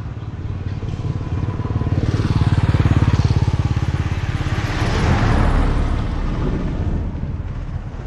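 Road traffic passing close by: an engine hum builds, then a small car drives past with its tyre and engine noise loudest about five seconds in before fading away.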